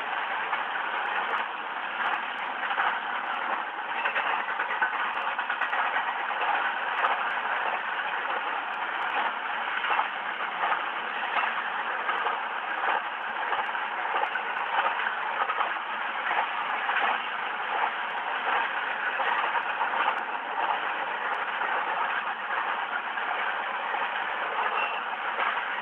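BNSF eastbound double-stack freight train rolling past: a steady, loud noise of steel wheels on the rails with many small clicks and clanks throughout.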